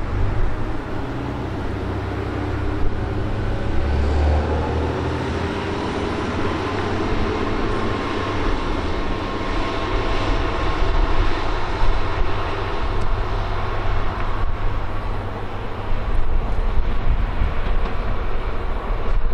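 Ibara Railway single-car diesel railcar pulling away from the station: its engine works hard with a rising whine as it gathers speed, then settles into a steady drone with the wheels running on the rails.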